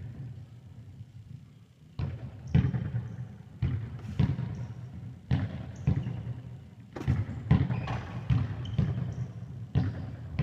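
A ball being kicked and bouncing on a sports-hall floor: irregular thuds, about a dozen in ten seconds, each with an echoing tail from the hall.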